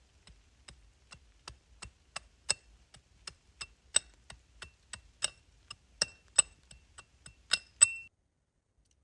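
A rapid series of sharp taps, about three a second, many with a short metallic ring. They grow louder toward the end and cut off suddenly about eight seconds in.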